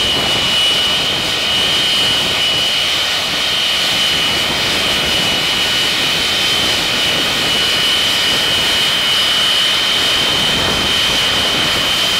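Boeing 737-200's Pratt & Whitney JT8D low-bypass turbofan engines running at taxi power: a loud, steady jet rush with a constant high-pitched whine.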